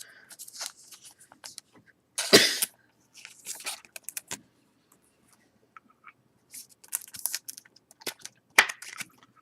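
Trading cards and plastic card holders being handled: soft rustling and scattered light clicks, with two louder short, sharp sounds, one about two seconds in and one near the end.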